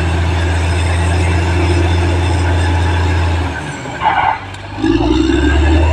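Caterpillar D6R XL bulldozer's diesel engine running steadily under work. A little over halfway through, the engine sound drops briefly with a short, sharper noise, then comes back at a lower pitch.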